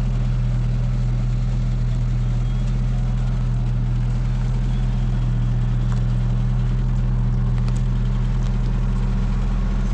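An engine running steadily at constant speed with an even, low hum.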